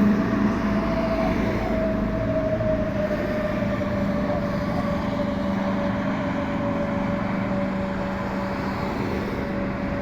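A vehicle running past with a steady hum and a whine that slowly drops in pitch as the sound gradually fades.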